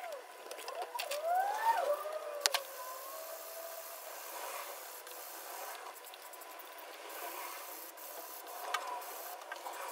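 Hand wet-sanding the clear coat of a carbon fibre fender with an abrasive sanding sponge: a steady rubbing scrape. In the first few seconds there are a few short squeaks and one sharp click.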